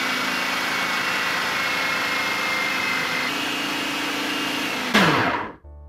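Countertop food processor running with flour as boiling water is poured in, mixing it into a hot, crumbly dough: a steady motor whir with a faint whine. About five seconds in it is switched off, and the motor winds down with a falling pitch after a brief louder burst.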